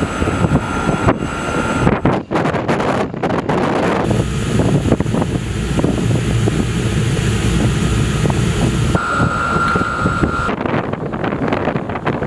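Wind rushing over the microphone together with the low rumble of engines at sea, changing abruptly at several cuts. The rumble is heaviest in the middle stretch, and a steady high tone sounds briefly near the end.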